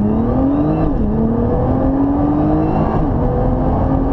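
Nissan GT-R R35's twin-turbo V6 accelerating hard at full throttle after a launch-control start, heard inside the cabin. The engine pitch climbs steadily, drops sharply at an upshift about a second in, climbs again, and drops at a second upshift about three seconds in.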